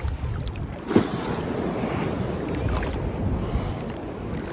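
Ocean surf sloshing around the swimmer as swells pass, close to the microphone at the water's surface, with wind rumbling on the microphone. A sharp splash about a second in.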